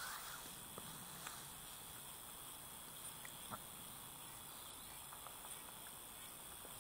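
Faint handling sounds of hands unhooking a fish in a landing net: a few small ticks and a rustle over a steady, quiet background hiss.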